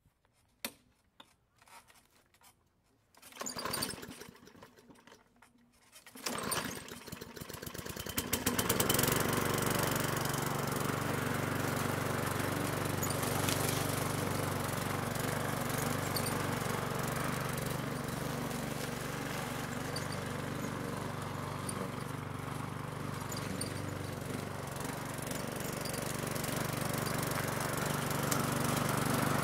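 Walk-behind lawn mower engine starting: a few clicks and short rustling attempts, then the engine catches about six seconds in with fast uneven firing that speeds up into a steady running note. It runs evenly for the rest of the time, getting somewhat louder near the end.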